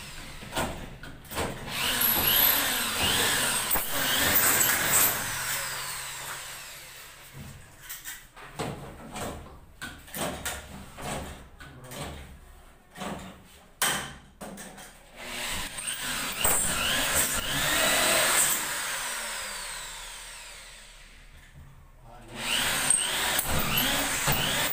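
Handheld power drill running in several stretches, its pitch rising and falling as it speeds up and slows, with scattered knocks and clicks between the runs.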